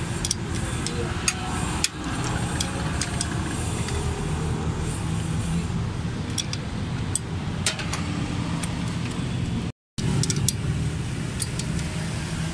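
A vehicle engine running steadily in the background, with scattered light metallic clicks of hand tools on the valve gear. The sound cuts out for a moment about ten seconds in.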